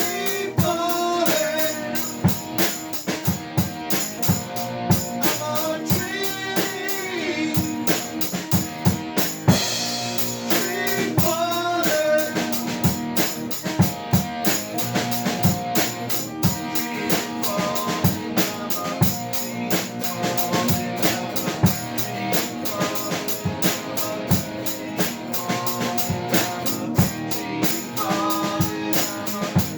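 Instrumental break of a rock song: a drum kit keeps a steady beat under a lead melody with bending notes.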